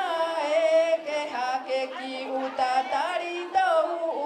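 Singing, with long held notes that waver and slide in pitch.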